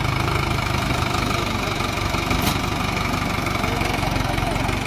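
Sonalika DI 750 tractor's diesel engine running steadily under load as the tractor climbs a steep sand slope, its firing pulses even throughout.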